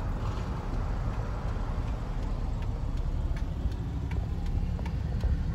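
Car driving, heard from inside the cabin: a steady low road and engine rumble, with faint, even ticks about every two-thirds of a second.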